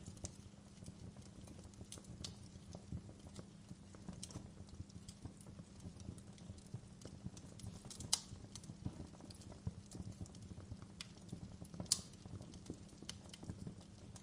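Wood fire crackling: irregular small pops and snaps over a steady low rumble, with two louder pops about 8 and 12 seconds in.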